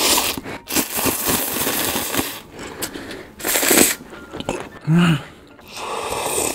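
Close-miked slurping of Shin Ramyun cup noodles, with bursts of noisy sucking and chewing. There is a brief hummed sound about five seconds in, and then broth is sipped noisily from the paper cup near the end.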